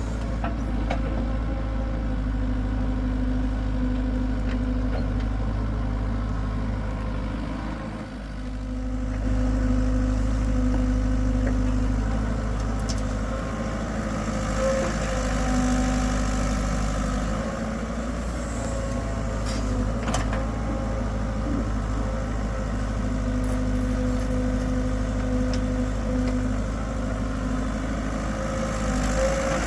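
Hitachi excavator's diesel engine running steadily, dipping briefly about eight seconds in and then picking up again.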